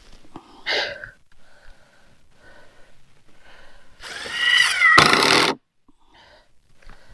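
Power drill driving an exterior screw into a pressure-treated pine decking board: the motor's whine dips in pitch under load for about a second and a half, then cuts off suddenly. Faint breathing comes before it.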